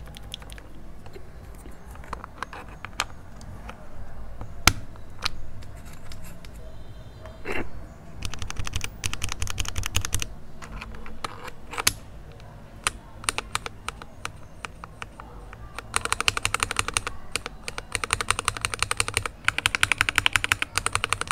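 Mechanical keyboard being typed on: unlubed Akko Starfish linear switches under Akko ASA low-profile double-shot keycaps, on an RK61 with case foam, PCB foam and a three-layer tape mod. Scattered single keystrokes give way to quick runs of typing about eight seconds in, and again from about sixteen seconds to near the end.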